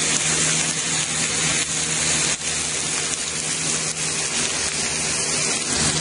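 Steak and melting butter sizzling in a very hot pan, a steady, dense frying hiss. A box fan running on high hums steadily underneath.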